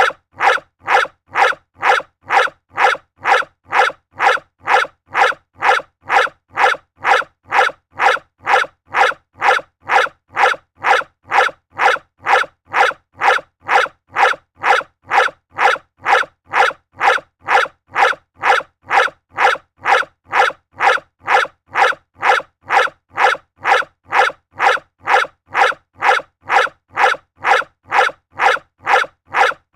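A dog barking over and over at a steady pace of about two barks a second, each bark alike, like one bark looped.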